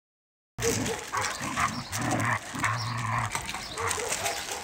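Dogs playing, an adult German shepherd-type dog and puppies, vocalizing in short low growls mixed with whimpers and yips. The sounds start about half a second in.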